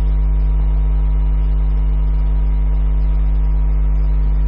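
Loud, steady electrical mains hum: a deep drone with a row of higher buzzing overtones, unchanging throughout.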